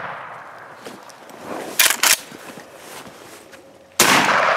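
A shotgun shot about four seconds in, sudden and loud, with a long echoing fade. At the start, the echo of an earlier shot is still dying away, and a little under two seconds in there are two short sharp cracks.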